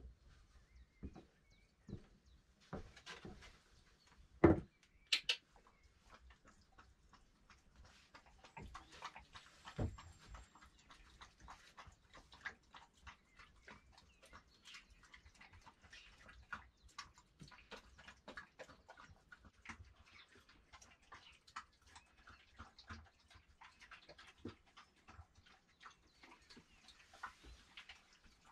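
Scattered light clinks and knocks of a lidded clay pot and metal utensils being handled on a wooden table as food is dished out, with one louder knock about four and a half seconds in. A dog is stirring close by.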